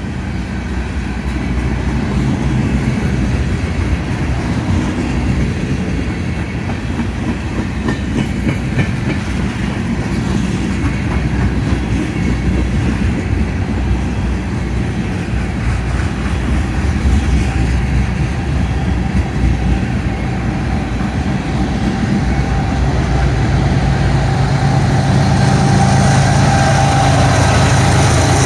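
Union Pacific freight train rolling past: the steady rumble and clickety-clack of freight-car wheels on the rails. Near the end a low diesel-engine drone grows louder as a set of locomotives within the train draws near.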